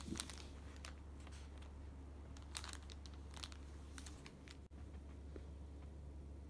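Plastic toy packaging crinkling in short scattered bursts, loudest right at the start, as a cat plays with and mouths it.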